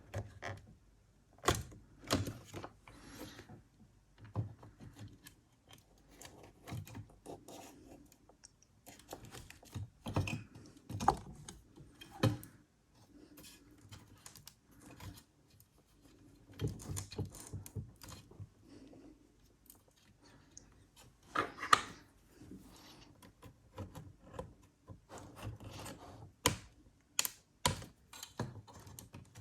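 Irregular small clicks, taps and scrapes of a screwdriver and fingers working the screws out of an MSI GE63 laptop's heatsink and fan assembly, with a few sharper knocks as the parts are handled.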